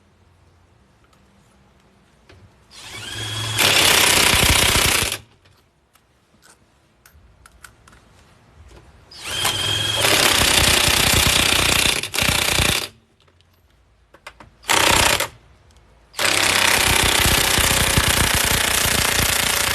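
Impact wrench hammering lug nuts onto the wheel studs in four bursts: a long one starting about three seconds in, another near ten seconds, a short blip near fifteen, and a long run from about sixteen seconds on. The worker then suspects that one nut went on cross-threaded, which later shows as a broken stud.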